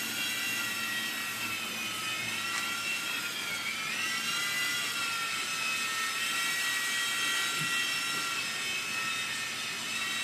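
Blade mCX2 coaxial micro RC helicopter in flight, its small electric motors and rotors giving a steady high-pitched whine. The pitch dips and comes back up about four seconds in, and again more gently a few seconds later, as the throttle changes.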